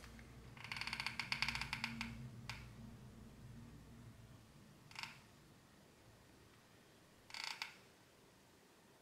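Faint sounds of a hot glue gun being worked against a small figurine: a rapid run of clicks lasting about a second and a half, starting about a second in, then two brief rustles later on.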